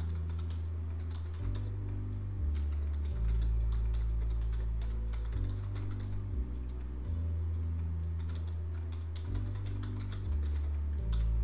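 Computer keyboard typing, rapid clicks in runs, over background music whose low, sustained bass notes change every second or two.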